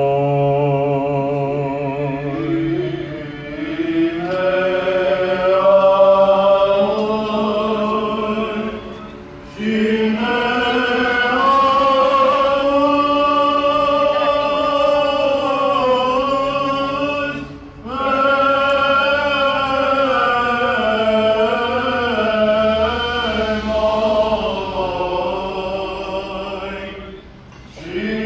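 Orthodox liturgical chant sung in long, sustained, slowly moving phrases, with three short pauses for breath.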